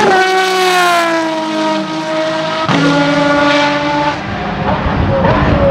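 Aston Martin V12 Vantage GT3 race car's 5.9-litre V12 on an open exhaust, passing close by. Its note drops sharply as it goes by and keeps falling as it slows. A sharp crack comes nearly three seconds in, then the engine runs at a lower, steadier note as the car heads away into the corner.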